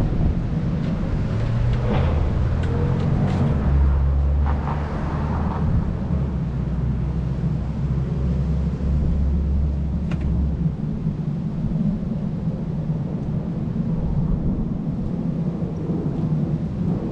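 Steady low rumble, with a deeper steady hum held for several seconds in the middle and a few light clicks.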